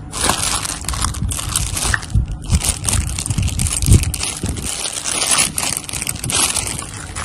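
Clear plastic wrapping on a toy train crinkling as the toy is handled, with a few dull knocks in the middle.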